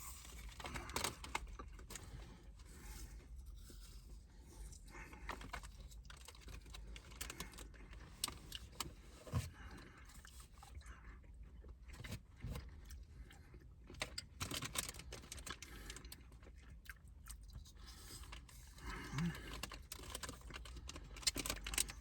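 Faint chewing and crunching of bites of caramel apple with crunchy candy topping, mixed with scattered small clicks and rustles of handling, in uneven clusters.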